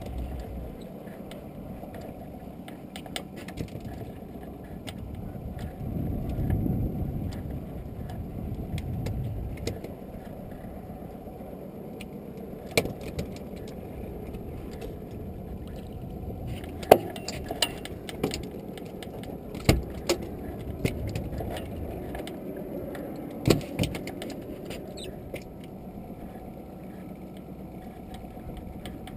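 Low rushing of wind and sea around a small open boat, swelling for a few seconds about six seconds in. About half a dozen sharp metallic clicks and knocks come in the second half.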